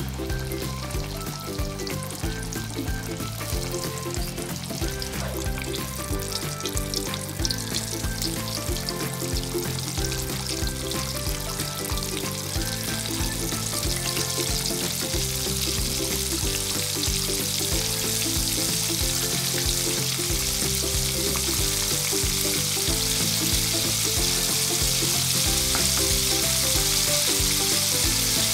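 Coated chicken pieces deep-frying in hot oil in a wok: a steady sizzle that grows louder over the second half. Background music plays underneath.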